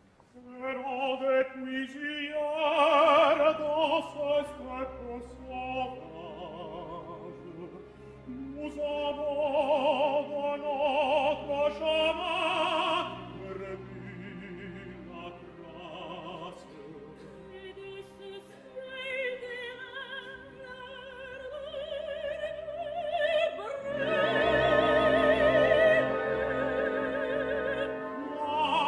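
A tenor and a soprano take turns singing an operatic duet in French, with strong vibrato, over orchestral accompaniment. The soprano's line near the end is higher and louder.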